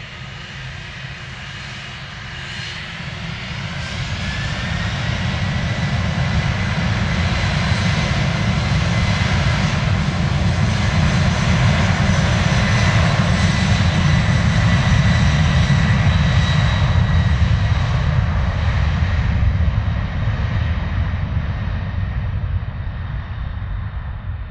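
Boeing 747 freighter's jet engines spooling up to takeoff thrust. A whine rises in pitch over the first few seconds, then holds as a steady high fan whine over a loud, deep rumble. The sound eases slightly near the end.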